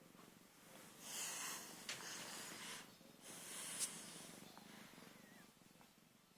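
Kitten purring faintly, with two breathy exhalations about a second long, one about a second in and one about three seconds in, as the kitten yawns.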